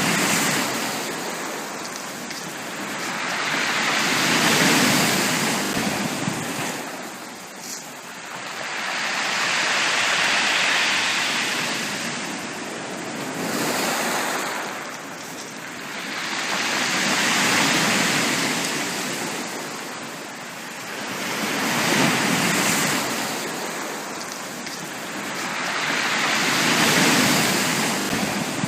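Ocean waves breaking on a beach, the surf swelling and fading in a slow, regular rhythm of about one wave every five seconds.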